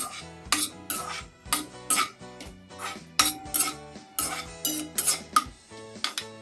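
Metal ladle scraping and clinking against a metal kadhai as sliced onions are stirred in oil, in quick irregular strokes, about two a second.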